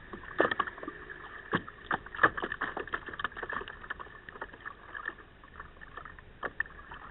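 Wake waves from a passing boat slapping and splashing against the kayak close to the microphone: irregular sharp splashes, busiest in the first three seconds, then thinning out.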